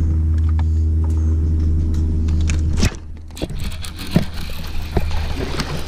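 Bow-mounted trolling motor's steady electric hum, cutting off suddenly about three seconds in. Then scattered clicks and splashy noise as a hooked bass is fought on a baitcasting rod and reel.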